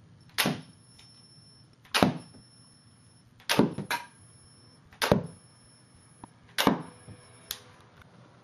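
Homemade coil gun pistol firing repeatedly: five sharp cracks about a second and a half apart, some followed by a smaller click. A faint high whine sits between the shots.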